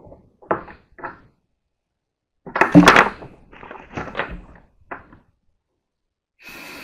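Objects knocked and shuffled about on a workbench, loudest about three seconds in. Near the end comes a steady hiss lasting about a second: an aerosol can of silicone release spray being sprayed.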